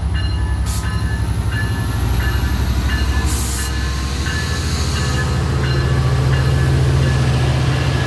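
A Metra EMD F59PHI diesel locomotive, with its V12 prime mover, running with a deep steady rumble. A bell rings steadily above it, about three strokes every two seconds.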